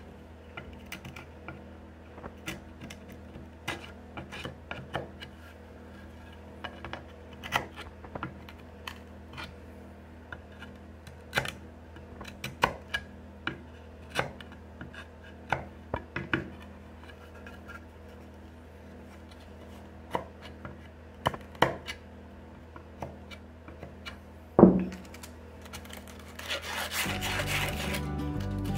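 Chisel paring the ends of wooden dowels flush: short, irregular scraping strokes and ticks of steel on wood, with one sharp knock about 25 seconds in. Background music comes in near the end.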